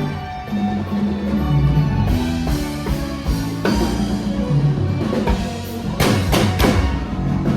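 Music with a drum kit and a bass line moving in steps, with a cluster of drum hits about six seconds in.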